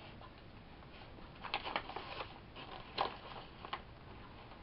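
Crisp crackles from crunchy kale chips and their snack bag being handled, in a few short clusters: about a second and a half in, around three seconds, and once more just after.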